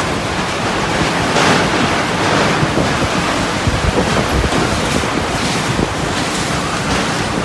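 Strong storm wind blowing hard across the microphone, rising and easing in gusts, with low buffeting thumps from the wind hitting the mic.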